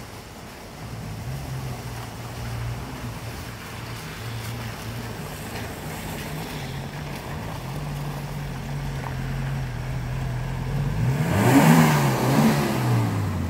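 Maruti Gypsy off-roader's engine running under load as it crawls through mud and rocks, steady at first, then louder near the end as it comes close, its pitch rising and falling with a rush of noise.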